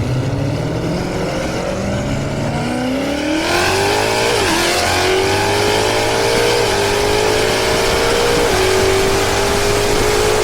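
Car accelerating hard down a drag strip: the engine note climbs steadily from the launch, then drops sharply at three upshifts about two seconds apart, climbing again after each.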